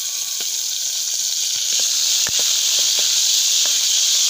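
Green garlic stalks sizzling in hot oil in a wide metal kadai: a steady, loud hiss with scattered small pops.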